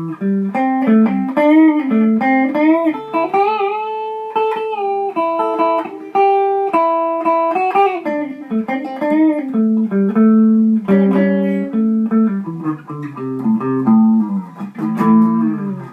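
Les Paul-style electric guitar with high-output pickups, middle pickup position, played through a modded Fender Champ 600 amp into a Celestion 12-inch G12H Anniversary speaker. It plays a run of single-note lines with several string bends, with the amp in its stock setting just starting to break up.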